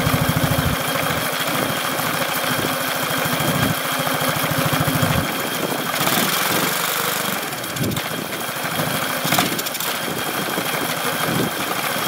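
Single-cylinder 125cc motorcycle engine running hard at full throttle in fourth gear, driving a big fan through a chain drive. Its fast low firing pulse is steady for about five seconds, then the sound turns rougher and noisier.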